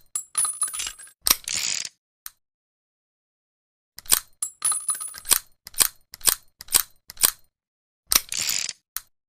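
Small cheap revolver being worked by hand: a run of sharp metallic clicks, some ringing briefly, with a short rasp about a second in and again near the end, and a pause of about two seconds in the middle.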